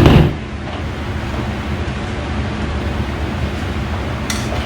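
A loud thump right at the start, then a steady low hum of room noise.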